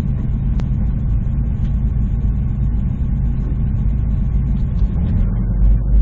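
Steady low rumble of engine and tyres on a sandy dirt road, heard from inside the vehicle's cab. Near the end the low rumble grows louder as an oncoming motorhome passes close alongside.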